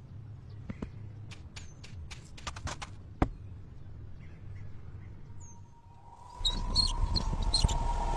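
Quiet outdoor ambience with scattered sharp clicks and a few short, high bird chirps. About six seconds in it gives way suddenly to a louder, busier noise with a steady mid-pitched tone running through it.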